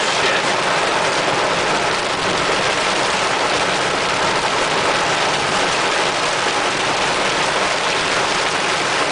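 Vehicle driving on a wet, muddy road: a steady rushing noise of tyres and spray over a low engine hum.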